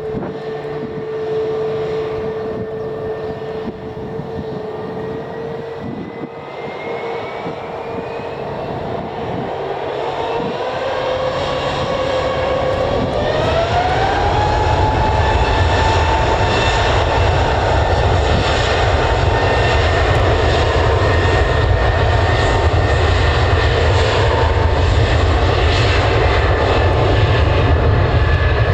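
Airliner's engines spooling up: a whine rises in pitch about halfway through and then holds steady under a loud low roar, as the engines reach take-off power.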